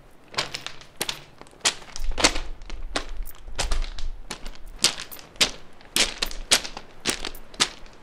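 Footsteps crunching on loose gravel: one person walking at a steady pace, about two steps a second.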